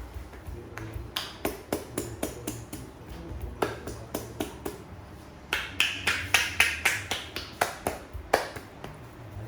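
Rhythmic percussive tapping and slapping of hands on the head in a head massage, about three quick strikes a second, in two runs, with the second run louder and carrying a slight hiss.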